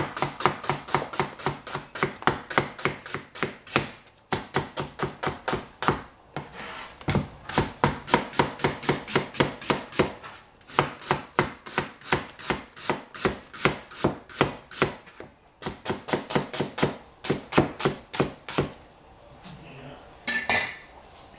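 Cleaver chopping an onion on a plastic cutting board: quick repeated knocks of the blade through the onion onto the board, about four a second, with a few short pauses, stopping shortly before the end, followed by one brief sharper sound.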